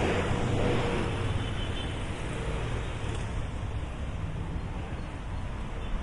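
Road traffic with a steady low rumble. A louder rush swells at the start, as a vehicle goes by, and fades over the next couple of seconds.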